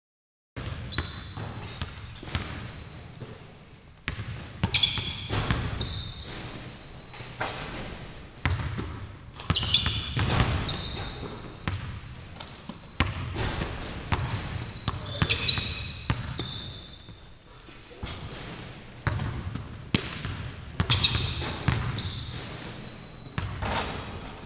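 Basketball workout on a hardwood gym court: the ball bouncing and hitting the rim and backboard, with sneakers squeaking, echoing in the hall. The knocks and squeaks come in busy spells about every five to six seconds.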